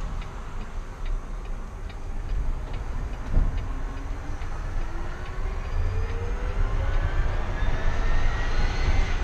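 Electric drive motor of a Peterbilt Model 579 battery-electric truck, heard from inside the cab, whining with a pitch that rises steadily as the truck accelerates in gear. A turn-signal clicks evenly in the first few seconds, and there is a thump about three seconds in.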